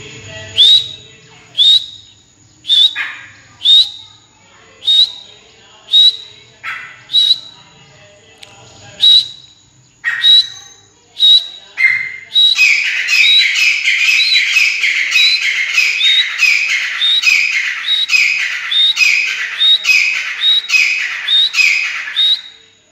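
Caged partridges (francolins) calling. First come sharp single calls about once a second; about twelve seconds in, a long run of loud, rapid calls starts and goes on until just before the end.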